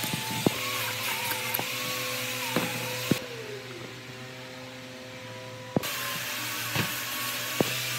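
A workshop machine's motor running with a steady hum, broken by scattered sharp clicks and knocks; the hiss falls away for a couple of seconds in the middle and comes back with a knock.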